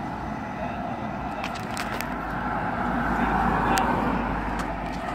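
Outdoor street traffic noise, a steady rumble that swells about three to four seconds in, as a vehicle passing would, then eases off, with a few sharp clicks.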